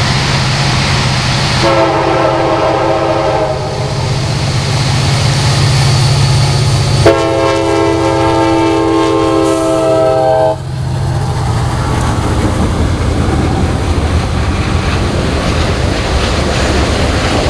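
CSX freight train's diesel locomotives approaching and passing with their engines rumbling. The air horn sounds two chord blasts, a shorter one about two seconds in and a longer, louder one about seven seconds in. Then the autorack cars roll by with wheels clacking over the rail joints.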